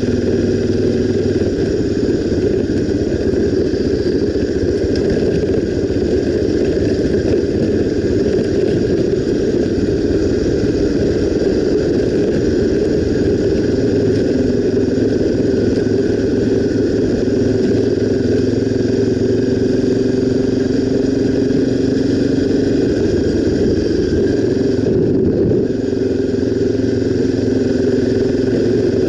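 Honda XR 250 Tornado's single-cylinder four-stroke engine running steadily under way, its pitch shifting slightly with the throttle and briefly easing off about 25 seconds in.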